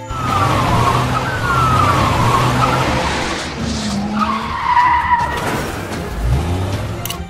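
Cartoon vehicle sound effect: a motor running under a rushing noise, with tyre-like squeals that slide down in pitch twice in the first two seconds and squeal again about four seconds in.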